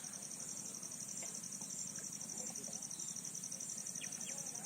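Insects trilling in a steady, rapid, high-pitched pulse, with a few faint bird calls over it.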